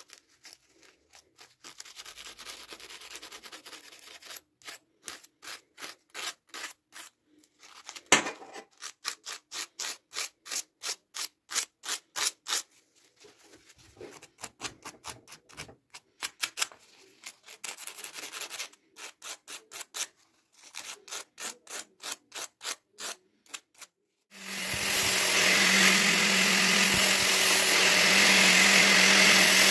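Quick back-and-forth strokes of a hand abrasive worked over the notched spine of a small steel knife blade, about three a second in runs with short pauses. About twenty-five seconds in, an angle grinder starts and runs steadily with a constant hum, much louder, as the blade is sharpened on its disc.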